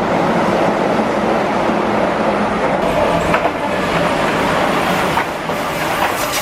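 Keihan 8000-series electric train running on the line: a loud, steady rumbling noise, with a few faint clicks partway through.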